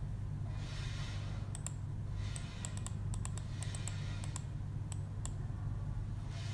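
Computer mouse clicking a dozen or so times at an irregular pace, scrolling through a drop-down list, over a steady low hum.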